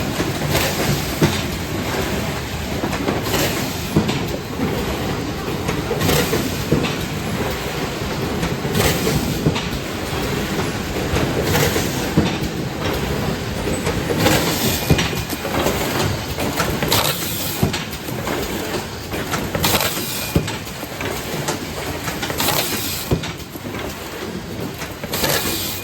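Automatic high-speed case erector and box-taping machine running, with a steady mechanical clatter and a short hissing burst every two to three seconds.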